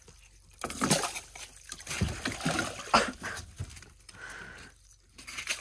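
Walleye thrashing in the water of an ice-fishing hole as it is grabbed and pulled out by hand: irregular splashes and sloshes.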